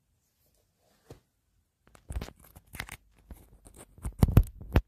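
Handling noise: a hand gripping and rubbing against the streaming phone right at its microphone, a run of scratchy rubs and knocks that starts about two seconds in, is loudest near the end, and cuts off suddenly.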